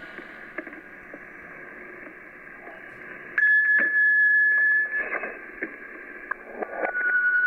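Radio-like electronic sound: a steady whistling tone over static, like a receiver tuned between stations. About three seconds in it jumps to a louder, higher tone that holds for a second and a half, then breaks into crackles and clicks before a steady tone returns near the end.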